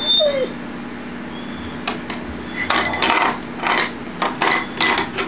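Air hockey table with its blower running as a steady hum, while the puck and mallets clack sharply against each other and the rails, about eight hits in the second half.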